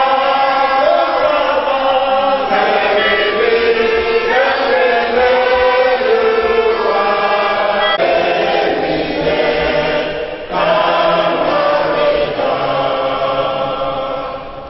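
A group of people singing a church hymn together, held notes moving from line to line, with a brief break about ten seconds in.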